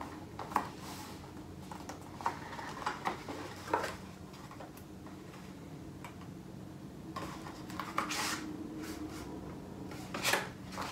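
Cardstock being handled, slid and pressed flat on a cutting mat: scattered light taps and papery rubs, with a longer sliding rub about seven to eight seconds in. A low steady hum runs underneath.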